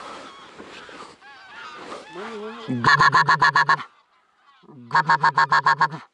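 Goose honking: two quick, loud runs of evenly spaced honks, about ten notes each, with a short rising call just before the first run. Rustling handling noise in the first second.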